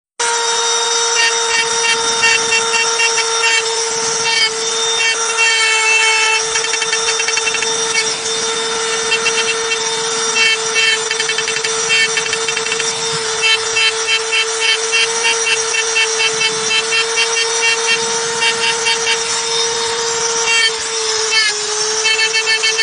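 Hand-held electric rotary tool (die grinder) with a small engraving bit, running at a steady high-pitched whine while its bit scratches lines into a stone slab in short strokes. Its whine dips briefly near the end as the bit loads.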